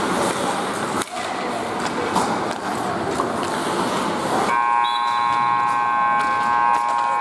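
Rink noise from play on the ice, then about four and a half seconds in the arena's scoreboard horn sounds and holds: one steady blaring tone with several pitches, signalling the end of the third period and the game.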